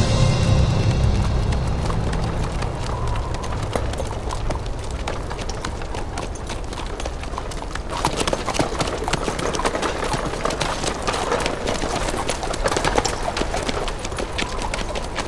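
Hooves of several ridden horses clip-clopping along a dirt forest track. The hoofbeats get louder and denser about eight seconds in.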